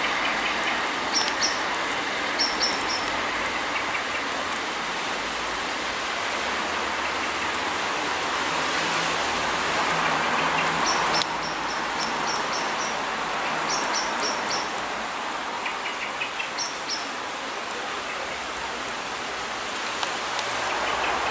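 Steady hiss of rain falling, broken by groups of short high chirps from a small bird. A faint low drone from the departing Class 158 diesel unit is heard in the middle.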